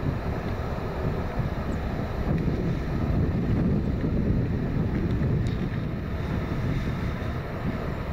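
Distant Boeing 787-9 airliner passing overhead: the steady, low rumble of its GEnx turbofan engines, mixed with wind noise on the microphone.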